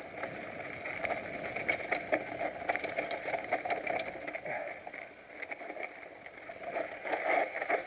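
Downhill mountain bike rolling over a rough, rocky dirt trail: steady tyre and riding noise with scattered rattles and clicks from the bike over the bumps, most between about one and four seconds in.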